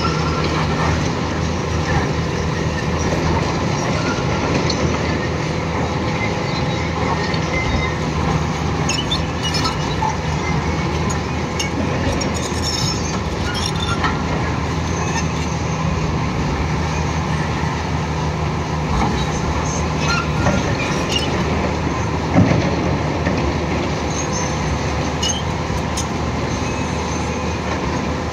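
Volvo EC480 excavator's diesel engine and hydraulics running steadily under load while the bucket levers a large marble block, with scattered clinks and scraping of stone and a single heavier knock about 22 seconds in.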